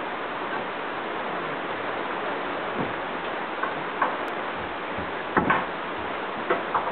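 Steady rain falling as an even hiss, with a few sharp ticks scattered through it, the loudest pair about five and a half seconds in.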